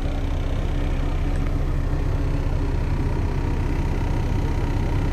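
Isuzu NRR truck engine idling steadily, heard from inside the cab.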